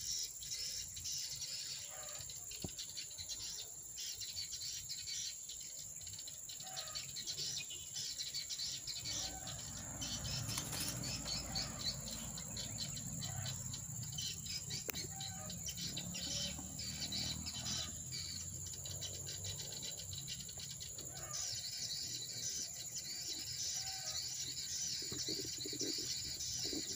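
Insects buzzing steadily in a high pitch, with small birds chirping on and off and a few short call notes. Near the end the insect buzz turns into a wavering trill. A low rumble comes in for a few seconds about ten seconds in.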